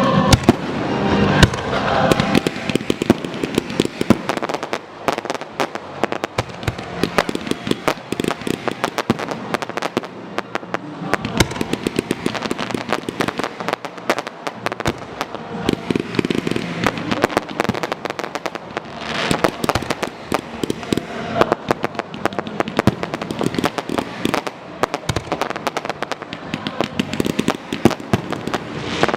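Fireworks going off in a dense, rapid crackle of sharp cracks and pops, many per second, with louder bangs scattered through it.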